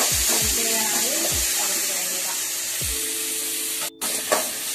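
Shallots, garlic and tomato pieces sizzling in hot groundnut oil in an aluminium kadai as they are stirred with a spoon. Background music plays over it, with a brief break in the sound about four seconds in.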